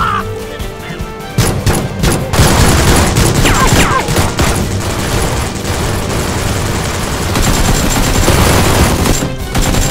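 A long, rapid volley of gunfire starting about a second and a half in and running until near the end, over background music.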